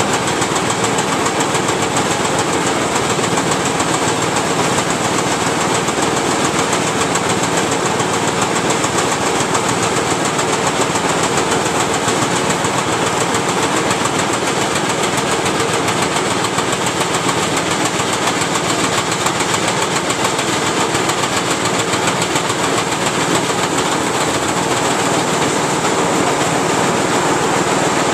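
Grain bin sweep auger running, a loud, steady, unchanging machine din with no let-up.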